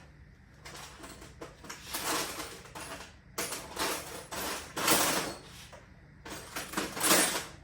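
Loose metal hand tools clinking and clattering as they are rummaged through, in irregular bursts.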